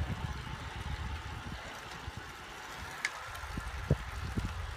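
Wind buffeting the camera's microphone while riding a road bike, an uneven low rumble, with a sharp click about three seconds in and a few short knocks after it.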